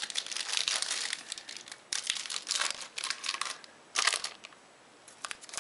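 Foil trading-card pack wrapper crinkling and tearing as it is worked open by hand, a tough, reinforced wrapper. It comes in a run of sharp crinkly bursts that stop about four seconds in, with a few small rustles near the end.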